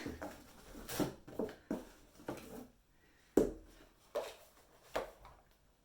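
Handling of merchandise packaging: a series of short knocks and clicks as items and boxes are picked up and set down, the sharpest a little over three seconds in.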